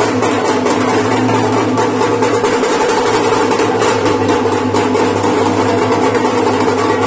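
Loud Diwari folk music: drums beating a steady run of strokes over a continuous droning tone.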